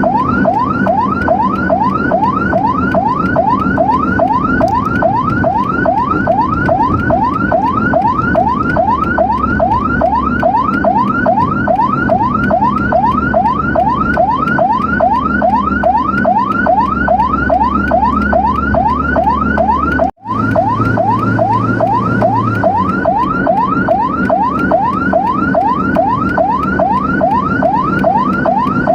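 Emergency vehicle siren in a fast yelp, a rising wail repeated a few times a second, over the low rumble of a moving vehicle, with a brief dropout about two-thirds of the way through.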